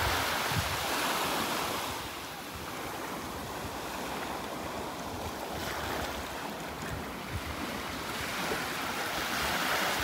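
Small waves washing up onto a sandy beach, swelling louder at the start and again near the end, with wind buffeting the microphone.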